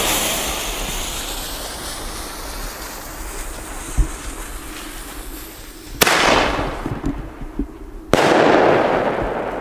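A small single-shot firework tube (Glamour Shot) is lit: its fuse hisses, a sharp launch crack comes about six seconds in, and the shell breaks overhead in a loud burst about two seconds later.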